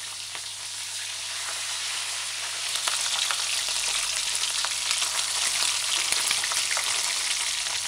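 Small sprat fish frying in hot oil in a frying pan: a steady sizzle full of small crackles and pops, getting a little louder about three seconds in.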